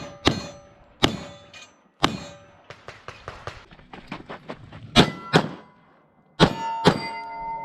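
Pistol shots from a Glock 22 in .40 S&W, several sharp reports spaced a second or so apart with a pause in the middle, and steel targets clanging and ringing as they are hit. A long ring from a struck plate holds on near the end.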